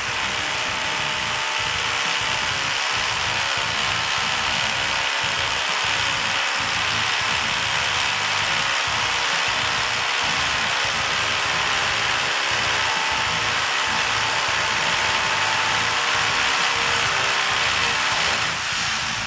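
Rotary hammers hammer-drilling into a concrete ceiling beam: a loud, steady clatter of the hammer mechanism driving the bit into concrete, which starts abruptly and drops somewhat near the end.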